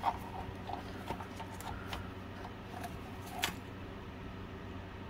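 Scattered light clicks and taps of plastic parts as the opened Milwaukee angle grinder's switch housing is handled and wiggled, the loudest about three and a half seconds in, then only a steady low hum.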